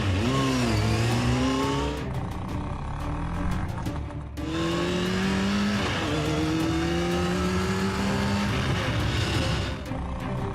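Car engine revving, its pitch rising steadily in long runs several times over, like a vehicle sound effect accelerating again and again.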